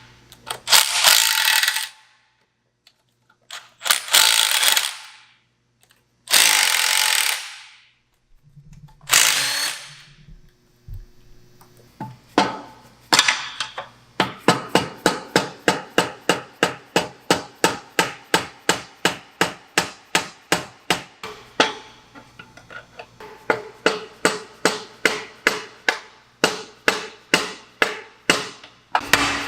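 Tools working the bolts of a rear end's third member loose: several short bursts of a power tool, each about a second long, then a long run of quick, even clicks, about four a second.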